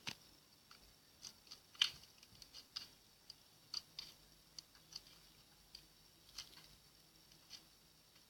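Slime being worked by hand, giving a run of small, irregular clicks and pops, about two or three a second, the loudest about two seconds in.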